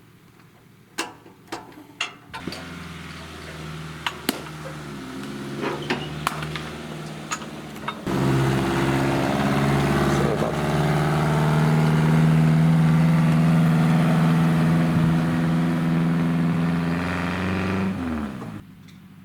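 A motor or engine starts up a couple of seconds in and runs with a steady hum, getting much louder about eight seconds in. It winds down with a falling pitch near the end. A few light clinks come before it starts.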